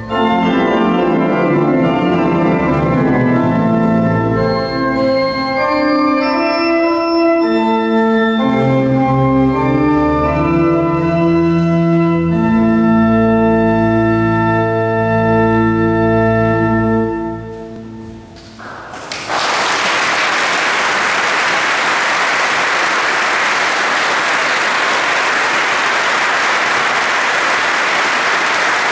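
Organ playing sustained chords over deep bass notes; the last chord dies away into the hall's reverberation about two-thirds of the way through. The audience then breaks into steady applause.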